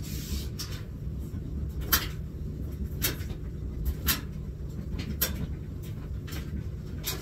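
Sharp knocks and taps of a plastic laundry basket being handled as clothes are pulled out of it, roughly once a second, over a low steady hum.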